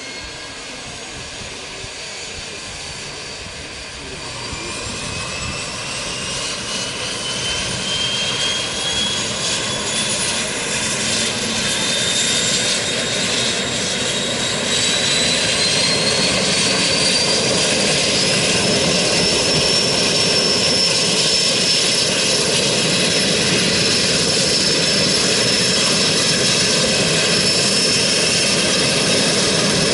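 Pilatus Porter's turboprop engine spooling up: a high turbine whine rises steadily in pitch and the engine grows louder for about fifteen seconds, then both hold steady as it settles into idle.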